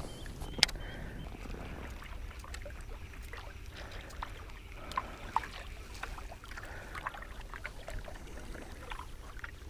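Quiet sounds aboard a small fishing boat on the water: faint water movement and low rumble, with small scattered clicks and knocks and a faint steady hum.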